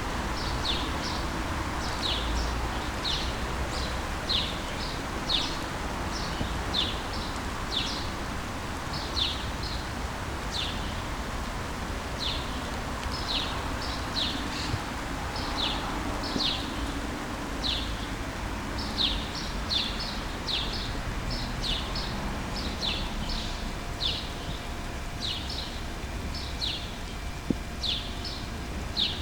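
Birds chirping: short, high, falling chirps repeated about once or twice a second, over a steady low rumble of background traffic.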